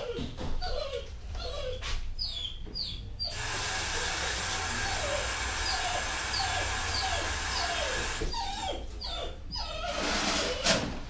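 Tap water running into a stainless-steel sink for about five seconds during hand-washing, while a dog whines over and over in short falling cries. Near the end comes a brief rustle of a paper towel being pulled and used.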